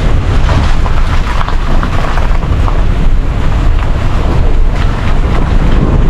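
A car driving along a rough, broken road, heard through a microphone on the outside of the car: a loud, steady rumble of heavy wind buffeting with road and vehicle noise underneath.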